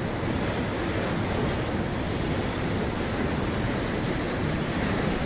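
Tornado winds blowing hard against the house, a steady, even rushing noise heard from inside through the glass doors.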